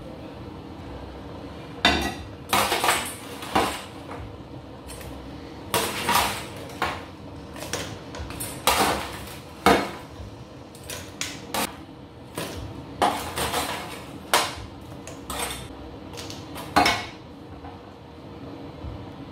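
Metal clattering as pieces of oven-dried meat are tipped and scraped from a metal baking tray into a stainless steel soup pot and the pot lid is taken off: a string of irregular sharp clanks and knocks over a low steady hum.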